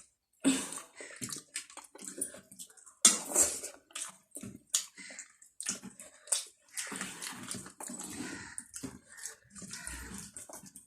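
Wet eating sounds of a rice and dal meal: chewing and mouth smacks, with irregular short clicks and squelches.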